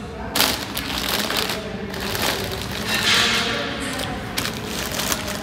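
Plastic shopping bags rustling and crinkling as they are handled at a bicycle's handlebar, with scattered clicks and knocks and a longer crackle about three seconds in.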